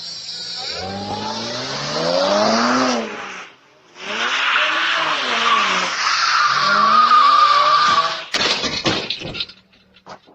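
A car engine revving up and down as the vehicle pushes through deep floodwater, with a heavy rush of spraying water. The sound breaks off briefly about three and a half seconds in, then resumes, and ends in a sharp knock about eight seconds in.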